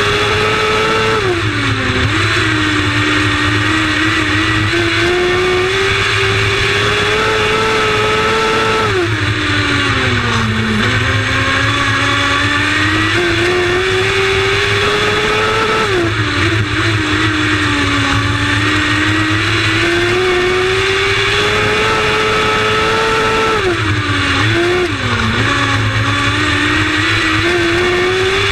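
Lightning sprint race car engine running hard at racing speed, its note climbing steadily for several seconds and then dipping sharply. This happens four times, about every seven to eight seconds, as it lifts off and gets back on the throttle lap after lap.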